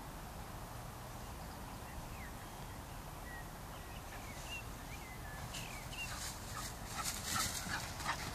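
A dog running through long grass: quick paw-falls and rustling of the grass grow loud over the last few seconds as it comes close. Before that there is only a steady low background hiss with a few faint high chirps.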